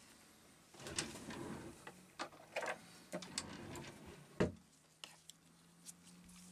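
Rustling and crinkling as gloved hands handle and put down a sheet of blue thermal pad, with several sharp taps on the wooden desk. The loudest, a single knock, comes a little past halfway, and a low steady hum starts just after it.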